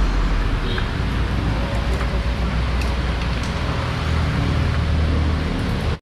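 Steady rumble of road traffic, with a few faint clicks, cutting off abruptly at the end.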